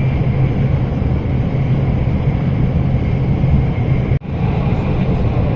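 Steady low rumble of the Haramain high-speed train running at speed, heard inside the passenger cabin. The sound drops out for an instant about four seconds in.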